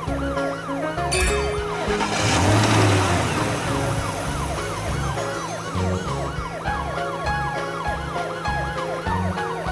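Cartoon background music with a steady low beat and a quick warbling, siren-like synth line that rises and falls about three times a second. A whooshing sweep comes through about one to three seconds in.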